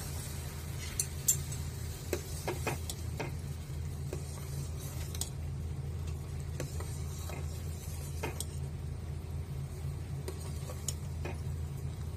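A metal ladle stirs a pot of boiling jaggery syrup, clinking against the pot now and then. A steady low hum runs underneath. The jaggery has fully melted into the syrup.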